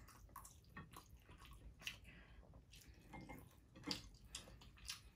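Very quiet eating sounds: a few soft clicks of chopsticks and faint wet mouth noises as two people eat noodles and dumplings, the clearest click about four seconds in.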